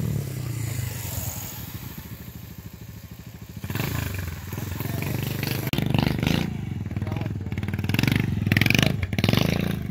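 Motorcycle engine running and fading away over the first few seconds, then louder revving from about four seconds in, swelling toward the end.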